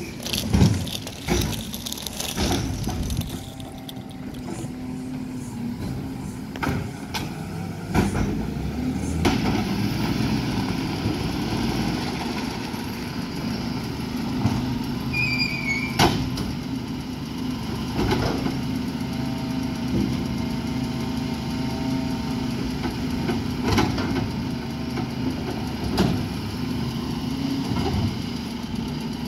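Side-loading garbage truck's diesel engine running steadily at a stop while its arm lifts and empties wheelie bins, with repeated sharp knocks and bangs as the bins are handled and a brief high squeal about halfway through.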